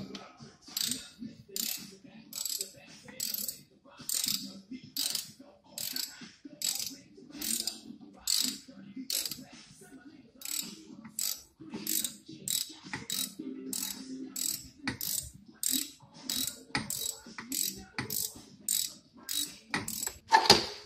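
Ratchet wrench being cranked in steady back-and-forth strokes, a burst of ratcheting clicks a little under once a second.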